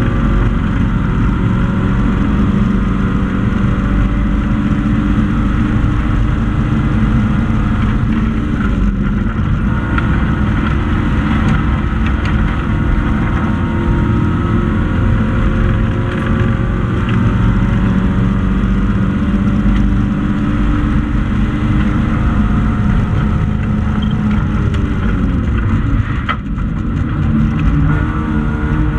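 Race-prepared hatchback's four-cylinder engine running hard under load, heard from inside the stripped cockpit, with road and tyre noise underneath. The engine note drops and climbs again about nine seconds in and again near the end as the driver lifts and changes gear.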